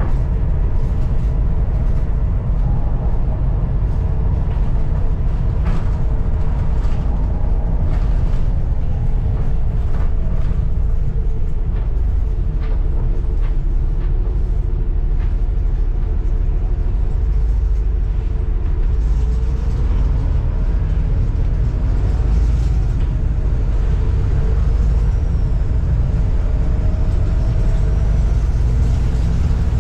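Volvo B7TL double-decker bus under way, heard on board: a steady low engine and road rumble with scattered rattles from the ageing ALX400 bodywork. Near the end a faint high turbo whistle rises and falls.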